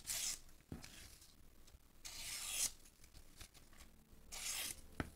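Factory edge of a ZDP-189 steel folding knife slicing phone book paper in a sharpness test: three brief cuts, near the start, about two seconds in and near the end.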